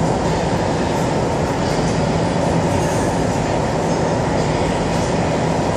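Steady running noise inside a moving MTR South Island Line S-Train metro car in a tunnel, with a continuous low hum under the rumble of wheels on rail.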